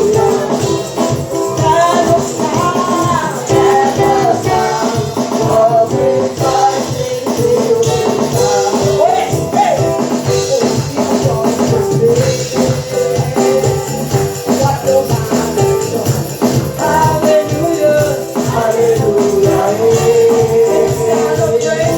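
Live praise-and-worship music: voices singing a wavering melody over instruments with a steady beat and a bass line.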